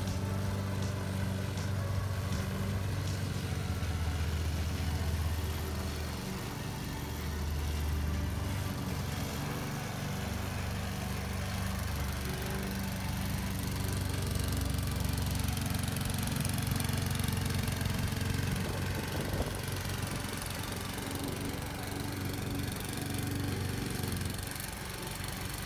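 Craftsman walk-behind gas lawn mower running steadily with a low drone as it is pushed across grass, its engine note shifting a little at each turn.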